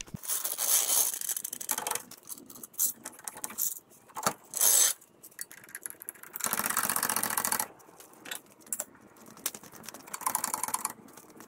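Metal jack and jack stand under a side-by-side being worked, ratcheting and clicking in several short bursts.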